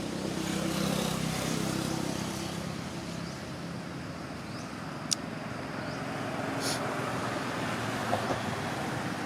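A motor vehicle's engine running close by on a road, a steady hum loudest in the first few seconds, with one sharp click about five seconds in.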